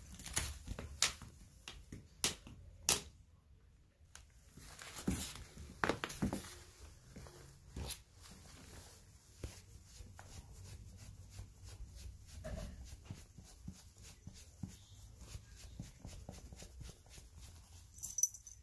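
Close handling sounds of a cat being groomed: a few sharp clicks and taps in the first three seconds, scratchy rustling, then a long run of fine rapid ticks as a wooden-handled brush is drawn through its fur.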